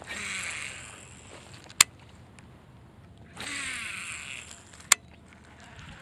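Baitcasting reel spool whirring as line pays out on a cast, twice, each run lasting about a second and followed soon after by one sharp click from the reel.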